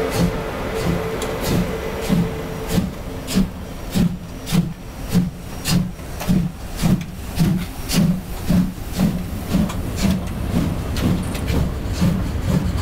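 DB class 01 steam locomotive 01 150 pulling away, its two-cylinder exhaust chuffing in sharp, even beats about two a second that quicken slightly as it gathers speed. Steam hisses from the open cylinder drain cocks around the driving wheels.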